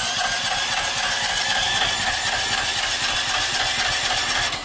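Stanley petrol generator's electric starter cranking the engine with the choke pulled, a steady pulsing churn that spins up at the start and stops near the end. The engine does not catch: fuel has not yet been drawn through after the fuel tap was just opened.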